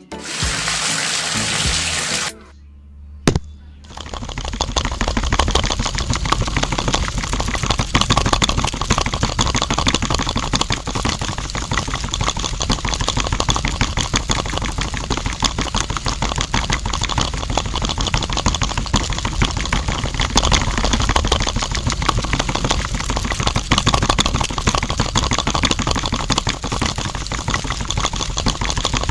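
Water poured into the miniature concrete mixer's drum onto sand and cement, then a sharp click about three seconds in, and from about four seconds a small electric motor running steadily with a fast rattle as it turns the drum of wet mix.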